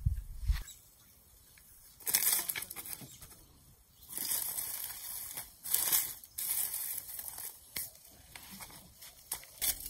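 Rocks being shifted and set down on dry ground strewn with twigs and leaves: a couple of low knocks right at the start, then irregular bursts of scraping and rustling.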